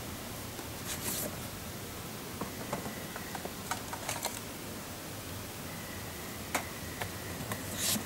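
Light clicks, taps and rustles of packaging and camping gear being handled on a folding camp table, with two louder crinkling rustles, about a second in and near the end.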